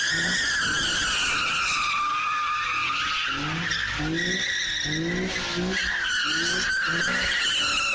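Car tyres screeching in a long, wavering squeal while the engine revs up in short rises again and again: a car spinning its wheels in a burnout.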